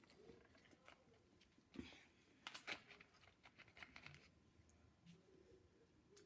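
Faint mouth sounds of eating noodles: soft wet clicks and smacks, bunched together from about two to four seconds in.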